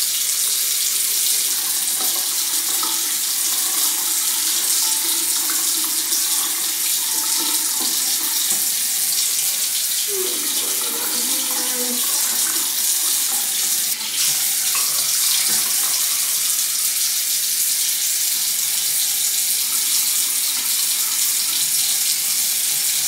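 Bathroom sink tap running in a steady stream, a constant hiss of water, while face wash is lathered and rinsed.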